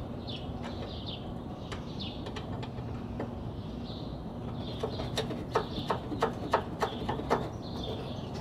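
Light knocks and clicks as a rebuilt front strut is moved and worked up into its mount in the wheel arch, coming several a second from about halfway through to near the end. Birds chirp over a steady low hum.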